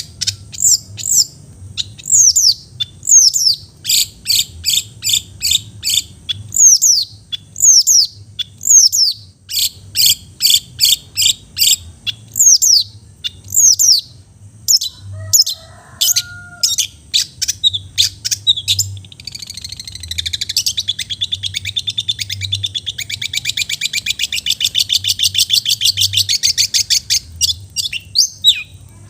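Long-tailed shrike (cendet) singing: a run of sharp, high downslurred notes, a few a second, then a long rapid trill from about twenty seconds in until near the end.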